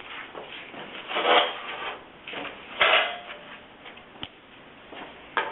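Spacers and hinge parts being slid and scraped out from the kiln lid's hinge, with two louder rasping scrapes, about one and three seconds in, and a few small clicks near the end.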